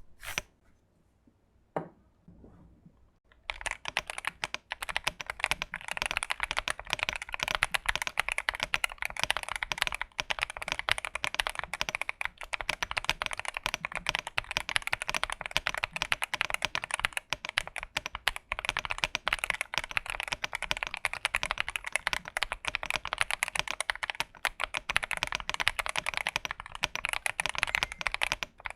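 Fast, continuous typing on an XVX Womier S-K71 aluminium mechanical keyboard fitted with Gateron Luciola linear switches, a modded build. A couple of single key clicks come first, and steady rapid typing starts about three and a half seconds in.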